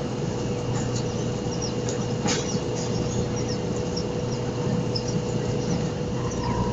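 Steady running drone of a CityCat catamaran ferry underway, with a constant hum and wind and water noise on its open front deck. Faint high chirps or clicks are scattered through it.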